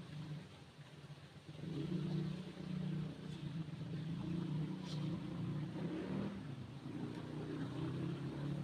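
A motor running with a low, steady hum that grows louder about a second and a half in and dips briefly near the six-second mark.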